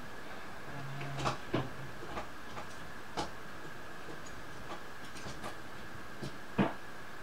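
Scattered light clicks and knocks of household things being handled as someone moves about a small room, with one sharper knock near the end. A faint steady high tone runs underneath.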